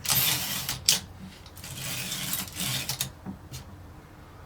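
Olympia Plana typewriter's carriage pushed back by its line-space lever, twice: the carriage slides with a rattle, with a sharp click from the platen ratchet between the two returns.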